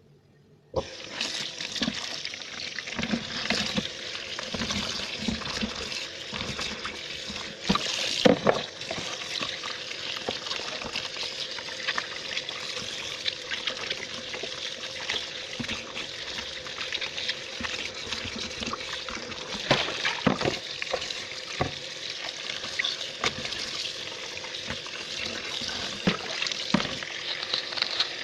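Food sizzling in hot cooking oil in a pan, a steady hiss with sharp clatters and scrapes of a utensil stirring. It starts suddenly about a second in.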